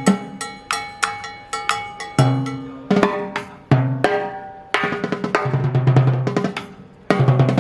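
A percussion set being played in a sound check. Single hits on pitched drums ring out every half second or so, then from about five seconds in the playing becomes a fast, dense roll; it breaks off briefly near the end and starts up again.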